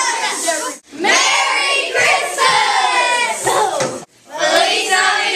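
Many children's voices together in chorus, a whole class sounding at once. It breaks off abruptly twice, about a second in and again about four seconds in, as one class's clip cuts to the next.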